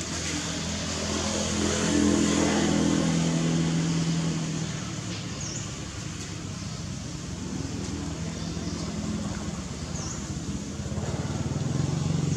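Engine of a motor vehicle running, growing louder about a second in, fading after about four seconds, and building again near the end.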